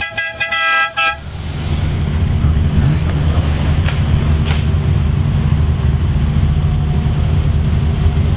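A car horn sounds a few short toots in the first second, then a classic sports car's engine runs with a steady low rumble.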